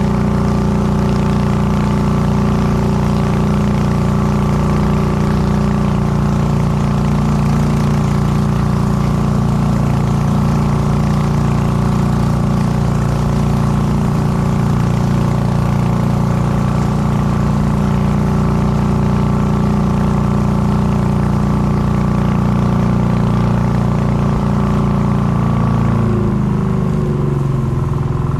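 Small motorboat's engine running steadily, heard close up from on board. About two seconds before the end, its note drops lower.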